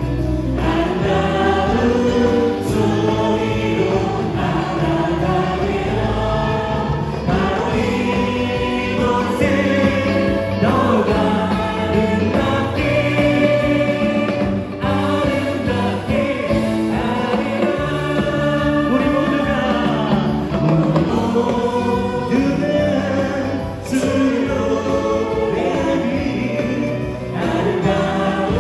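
A church praise band performing live: singers singing a Korean worship song together over electric guitar, synthesizer keyboard and drums.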